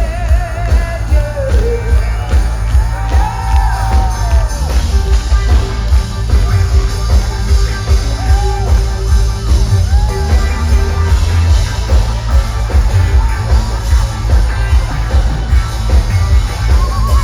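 Live rock band playing loud through a concert PA, with a heavy pulsing bass beat and a singer's voice sliding up and down. A long note is held in the middle.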